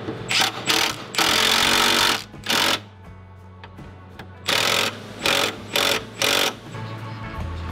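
12-volt cordless impact wrench hammering in bursts as it runs down and tightens the rear subframe mounting bolts: a few short bursts, one of about a second, then after a pause four quick short bursts. Faint background music plays under it.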